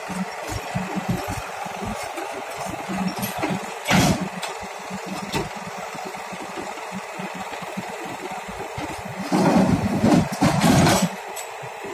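Heavy machine's engine running with a fast, even chugging pulse, with a short loud surge about four seconds in and a longer loud stretch from about nine to eleven seconds.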